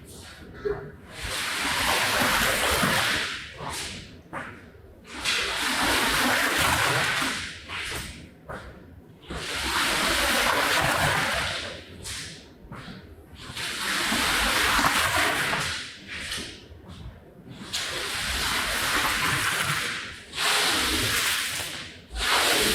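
Long wet swishing strokes of water being worked across a soaked rug, repeating about every four seconds.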